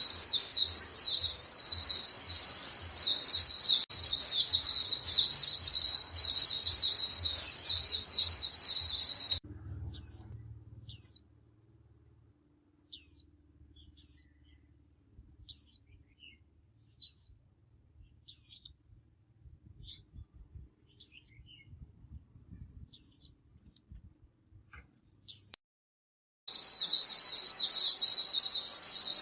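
A flock of white-eyes twittering densely and rapidly, all high-pitched. About a third of the way in it cuts abruptly to single sharp calls falling in pitch, repeated roughly every second or two. Near the end the dense flock twittering returns.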